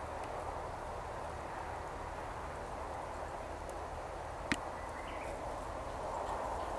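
Steady outdoor background hiss from the field recording, with a single sharp click about four and a half seconds in.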